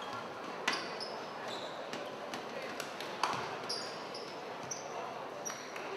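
Sports shoes squeaking on an indoor hardwood court, with two sharp knocks about a second and three seconds in, over background chatter echoing in a large hall.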